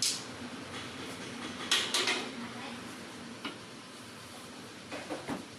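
Sharp metallic clinks and clanks of hand tools and parts during car repair work: one click at the start, a loud cluster of clanks about two seconds in, and a lighter click later, with a brief bit of voice near the end.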